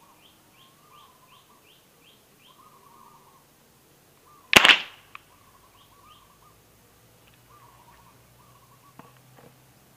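A single loud shot from a homemade PVC alcohol-combustion gun about four and a half seconds in, short and sharp, followed by a faint click. Birds chirp and call in the background.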